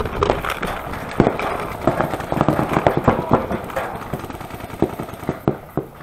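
Paintball markers firing in quick, uneven strings of shots, several pops a second, with balls smacking into inflatable bunkers.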